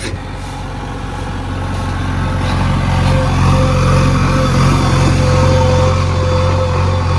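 A heavy machine's diesel engine running steadily, growing louder over the first three seconds or so, with a thin steady whine above the low engine note.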